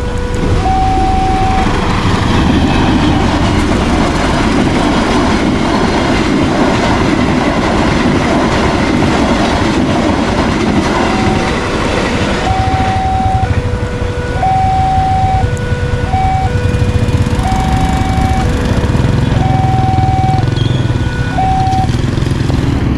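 Level-crossing warning alarm sounding an alternating two-tone chime. About a second in, a train passing over the crossing drowns it out for some ten seconds; then the chime is heard clearly again until it stops near the end.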